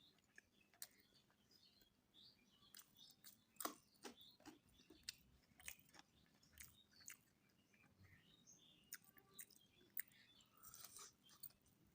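A person chewing a mouthful of mutton biryani close to the microphone: faint, irregular wet mouth clicks and soft crunches.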